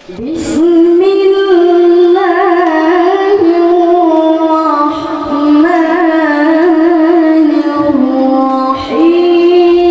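A boy's voice reciting the Quran in the melodic tilawah style through a handheld microphone, holding long ornamented notes that waver up and down. It begins abruptly about half a second in, and near the end he breaks briefly for breath and starts a new held note.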